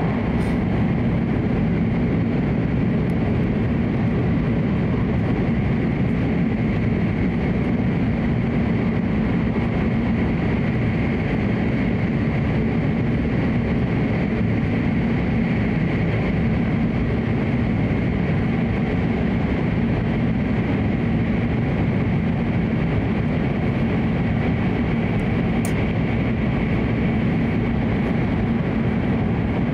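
Steady interior running noise of an E7/W7-series Hokuriku Shinkansen travelling at speed through a tunnel: a constant low rumble with a hiss over it, even in level throughout.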